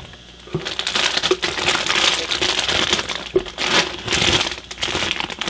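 Clear plastic bags holding a model kit's sprues crinkling and rustling as they are lifted and shuffled by hand in the cardboard box, starting about half a second in.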